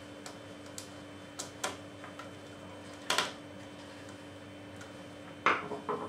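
Handling noise from an Amiga 1200's plastic case and a screwdriver while small screws are taken out: scattered light clicks and knocks, with a louder clatter about three seconds in and the loudest knock near the end.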